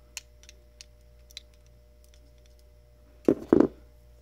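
Handling noise from small parts being fitted into a plastic current-sense module: a few faint clicks, then two loud dull knocks in quick succession a little after three seconds in.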